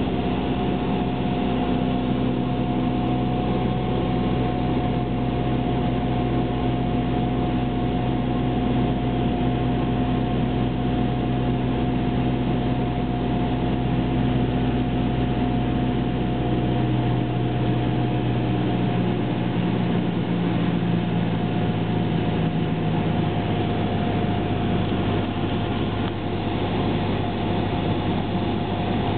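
Cessna 172's piston engine and propeller droning steadily, heard inside the cabin in flight while setting up to land. The engine note changes slightly about two-thirds of the way through.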